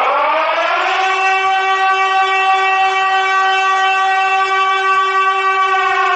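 'Scary Horn' sound effect from a scary-sounds soundboard app: a siren-like wailing horn tone that rises in pitch over the first second, then holds steady. It begins to fall again at the very end.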